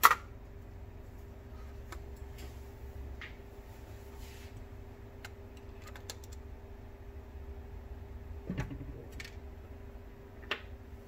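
Plastic instrument-cluster parts handled on a workbench: a sharp click right at the start, then scattered light clicks and taps, with a heavier knock about eight and a half seconds in, over a steady hum.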